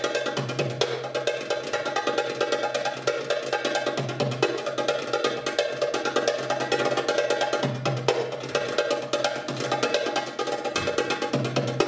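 Live goblet drum (darbuka) solo for belly dance: rapid rolls of sharp, crisp strokes, punctuated every few seconds by deep bass strokes.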